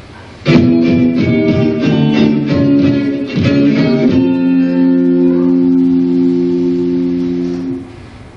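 A short guitar riff: a run of quick plucked notes for about three and a half seconds, then a held chord that stops near the end.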